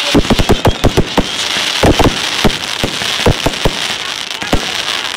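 Fireworks going off at close range: rapid, irregular bangs over a steady crackling hiss, thinning out toward the end.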